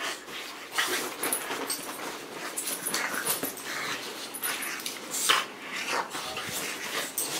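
A Boston terrier and a small white long-haired dog play-fighting: short, irregular dog vocal sounds and scuffling on the bedding, with a light jingle of collar tags. The loudest moment comes a little past halfway.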